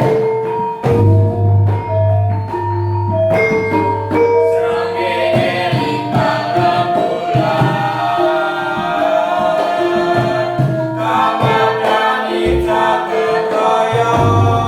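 Javanese gamelan playing: a melody of struck bronze metallophone notes over a low, sustained, humming tone. Voices singing along join in about five seconds in.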